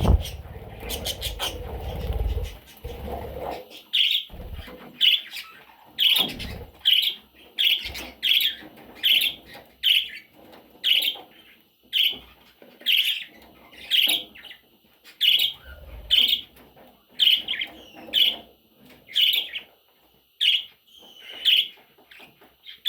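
Budgerigar chicks chirping in a steady series, short high cheeps about once a second, starting about four seconds in. Before that, a low rumbling noise.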